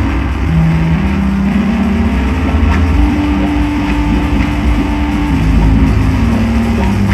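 Loud psychedelic drone noise music played live: a dense low rumble under long held tones that shift in pitch, with a higher tone sustained through the middle.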